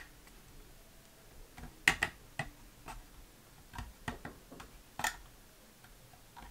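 Scattered small clicks and light taps from a Bronica S2A's mirror frame and metal body as fingers press the frame back down into place. The sharpest clicks come about two seconds in and about five seconds in.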